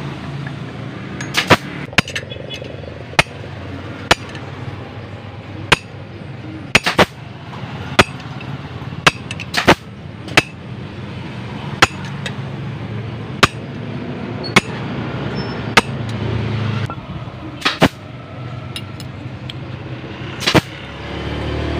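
Sharp hammer taps on a steel rod, about one a second, uneven and sometimes in quick pairs, driving a new oil seal into the right-side crankshaft seat of a Yamaha DT125 two-stroke crankcase.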